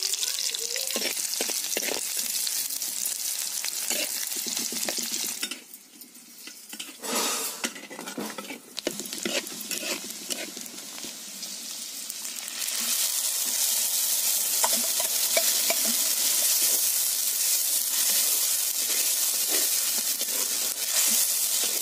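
Food sizzling as it fries in hot oil in a clay pot, with a metal spatula scraping and stirring it. The sizzle drops for a few seconds around the middle and comes back louder and steady for the second half.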